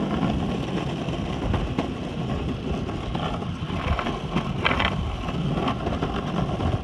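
Skateboard wheels rolling over a concrete road: a steady rumble, with wind buffeting the phone's microphone. A couple of sharp clacks about four and a half seconds in.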